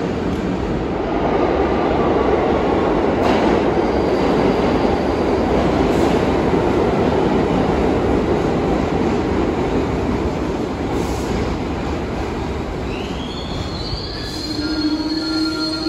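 R62A subway train on the IRT Broadway Line running into the station with a loud, steady rumble of wheels on rail. Near the end a high squeal rises and holds as it brakes toward a stop.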